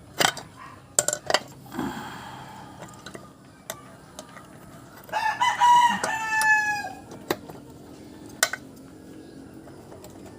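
A rooster crows once about halfway through, one call of about two seconds that drops in pitch at the end. Sharp metal clicks and knocks sound before and after it.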